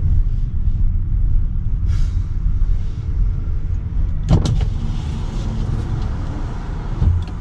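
Steady low rumble of a car running, heard inside the cabin, with a single sharp clunk a little past the middle.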